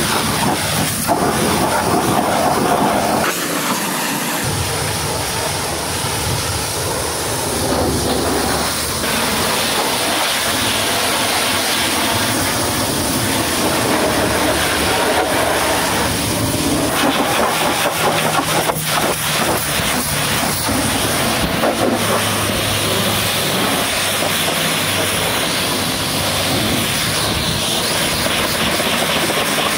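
High-pressure washer jet spraying hard against a tipper truck, a steady loud hiss and spatter of water. Its tone shifts as the jet moves from the wheel rim to the chassis and then onto the painted steel tipper body.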